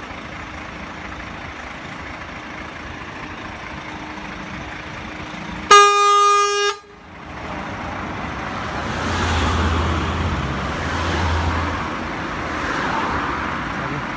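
A vehicle horn sounds once, a loud blast lasting about a second, roughly six seconds in, over steady traffic noise. Afterwards a DAF CF tipper lorry's diesel engine grows louder as the lorry rolls forward alongside.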